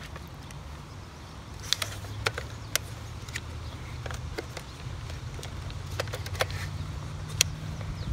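Sharp clicks and taps of hard plastic as a toy water bead blaster is gripped and its parts pressed and slid, about ten clicks scattered through, over a steady low rumble.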